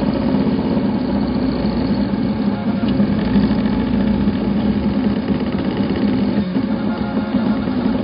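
Stepper motors of a homemade plywood-frame 3D printer whirring as the print head traces round layers of a plastic hose coupling, the pitch shifting in steps with the moves, over a steady fan hum.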